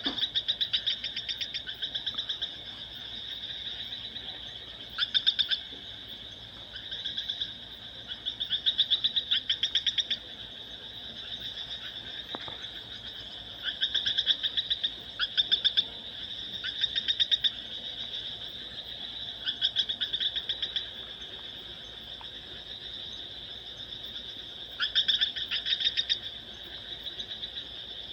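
Animal calls: rapid pulsed trills in bouts about a second long, repeating every few seconds, over a steady high-pitched drone.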